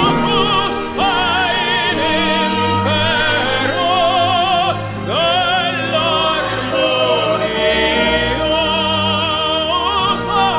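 Operatic singing with a wide vibrato over an orchestral accompaniment, in long held phrases with short breaths between them.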